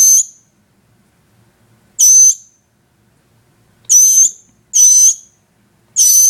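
A fledgling songbird calling: five loud, shrill single peeps, each about a third of a second long and evenly pitched, coming every one to two seconds.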